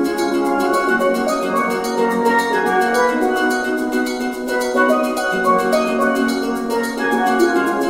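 Instrumental background music: layered melodic notes over a steady percussive beat.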